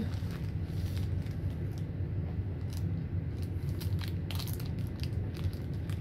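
Hunter Original ceiling fan's motor humming steadily as it turns slowly on a low step of a speed test control, its stiff bearings only just letting it start. Scattered crunches and crinkles of snack food being eaten over the hum, a cluster of them a little past the middle.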